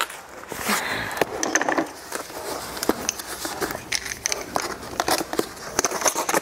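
Box cutter slicing open a package, with scattered clicks and crackling as the cardboard and plastic packaging is cut and handled.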